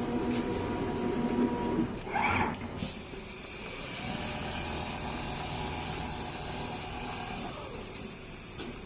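Automatic large-panel sewing machine running, with a steady high whine that sets in about three seconds in and holds, over a constant low hum.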